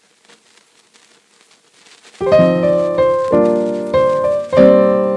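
Background piano music: after about two seconds of faint hiss, a series of sustained piano chords, each struck and left to ring and fade.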